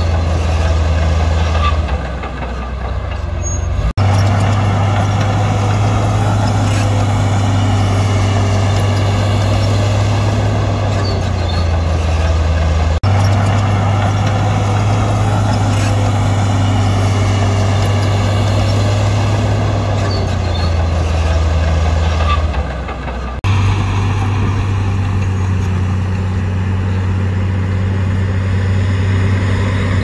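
Diesel engine of heavy earthmoving machinery running steadily with a deep hum. It breaks off abruptly three times and starts again at once.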